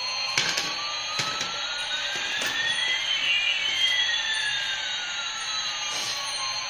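A battery-powered toy Airbus A380 playing its electronic jet-engine sound: a steady rush of noise with one whine rising slowly while another falls, the two crossing about halfway through. A few light knocks come from the toy rolling on the tile floor.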